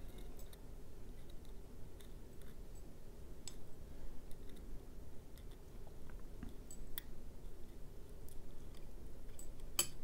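Faint, scattered clicks and ticks as a pick works the small sliders out of a Kwikset SmartKey slider cassette one by one, with a few sharper clicks.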